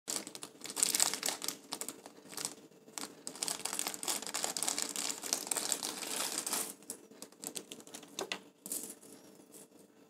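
Small clear plastic zip bag crinkling and rustling in the hands for about the first seven seconds. After that, a few light metallic clicks as the metal D-ring screws tip out of the bag into a palm.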